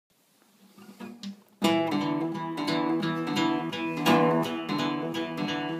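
Strummed acoustic guitar playing chords in a steady rhythm, coming in about a second and a half in after a few faint, soft noises.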